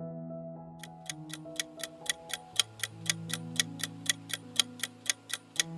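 Countdown-timer clock-ticking sound effect, about four even ticks a second, starting just under a second in, over soft held background music notes.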